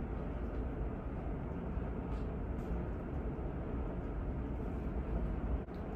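Steady low background rumble of room noise, with no distinct events.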